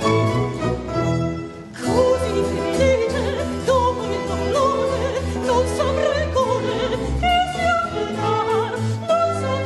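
Baroque string orchestra playing; about two seconds in, after a brief drop, a female opera singer comes in over it, singing an aria with vibrato and quick runs.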